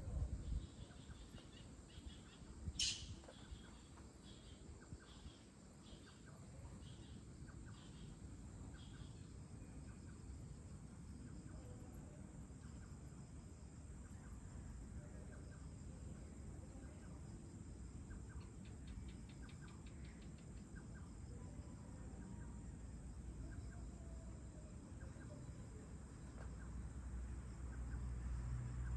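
Faint evening outdoor soundscape of crickets and other insects chirring steadily, with a run of short repeated calls, about three every two seconds, for several seconds near the start. A low rumble builds in the last couple of seconds.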